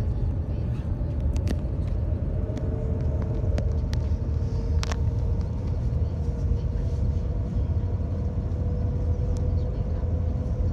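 Cabin noise inside the Shanghai Transrapid maglev train at speed: a steady low rumble with a faint hum that slowly rises in pitch, and a few faint clicks.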